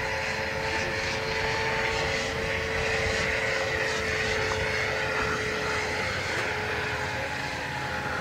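Electric 600-size scale RC helicopter (Roban HH-60 Jayhawk with a Scorpion motor) in flight: a steady whine from the motor and rotors over a rushing noise, the main tone drifting slightly and fading about six seconds in.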